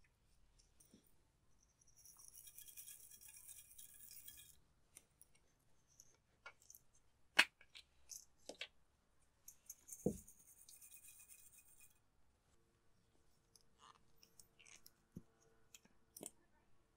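Faint rattling of sequins and glitter shaken out of small jars onto slime, in two spells, with a few sharp clicks and taps between.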